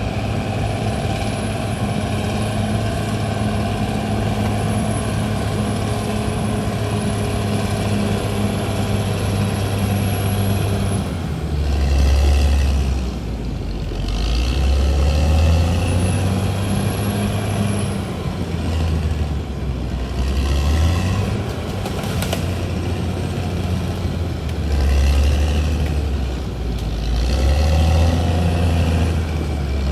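Diesel engine of a CAT D6R XL crawler bulldozer, running steadily for about ten seconds, then its pitch and loudness dropping and rising again several times as it works under changing load.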